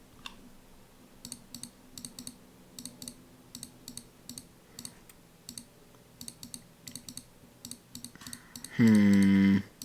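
Computer keyboard keys and mouse buttons clicking at an irregular pace. Near the end comes one short, loud hummed 'mm' from a voice, sliding down in pitch and then holding.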